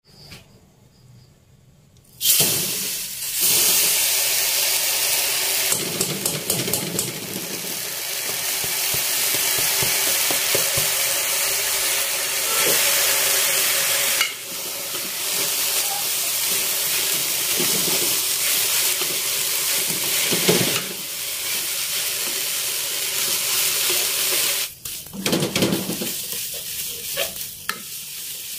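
Wet, freshly washed black sesame seeds sizzling in a hot stainless steel wok as they are dry-roasted to drive off their moisture, with a wooden spatula stirring them. The sizzle starts suddenly about two seconds in and dies down near the end.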